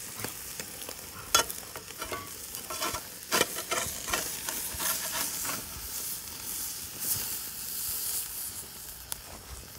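Rockfish fillet sizzling on a cast-iron grill grate over an apple wood fire, a steady high hiss. A few sharp clicks and knocks cut through it, the loudest about a second and a half in and again around three and a half seconds in.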